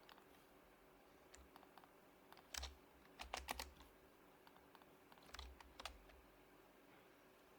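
Sparse, quiet typing on an HHKB Professional Hybrid Type-S keyboard with silenced Topre switches: scattered keystrokes, with short flurries about two and a half, three and a half and five and a half seconds in.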